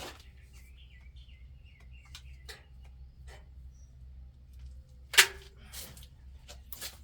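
Scattered clicks and knocks of handling during work under a truck, with one sharp, loud knock about five seconds in. A bird chirps faintly a second or two in.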